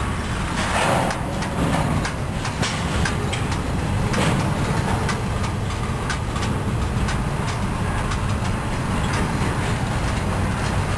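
Double-stack container freight cars rolling past at close range: a steady low rumble of steel wheels on rail, with a scatter of sharp clicks and knocks from wheels and couplers.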